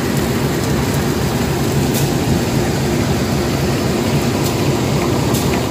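Diesel engine of a train standing at the platform, running steadily with a low drone, cutting off abruptly near the end.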